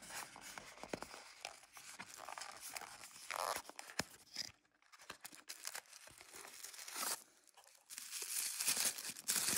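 Small cardboard box being pulled open, then tissue paper crinkling and tearing as it is unwrapped from around a bath fizzer. The crinkling grows louder near the end.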